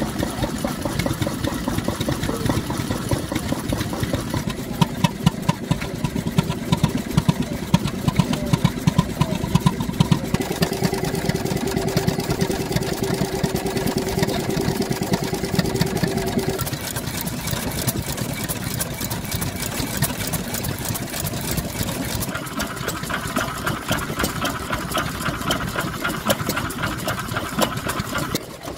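Several vintage single-cylinder stationary engines running together: a fast, busy clatter of exhaust beats and valve gear. A steady tone joins in the middle for a few seconds, and a higher one near the end.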